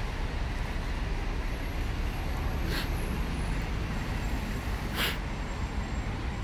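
City street traffic: a steady low rumble of passing cars and buses, with two short hisses about three and five seconds in.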